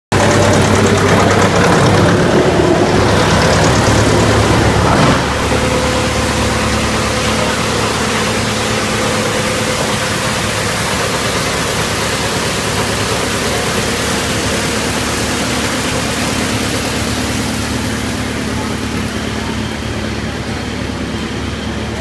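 YBX218 wood chipper running loud and steady with a low machine hum, chewing a log fed in on its infeed conveyor. About five seconds in the sound drops a little and settles into steadier running.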